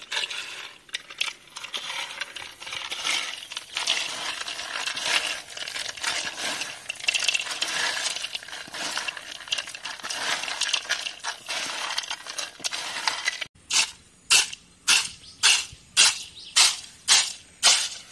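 Roasted peanuts rubbed between the hands over an aluminium bowl: papery skins crackle and the nuts click against the metal as they are cleaned and split. About 13 seconds in this changes to a steady rhythm of nearly two swishes a second as the nuts are tossed in the bowl to winnow off the skins.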